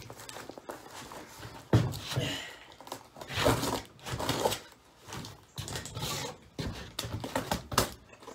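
Box cutter scraping and sawing at the tape and cardboard of a shipping box in irregular strokes. The blade is dull and barely cutting.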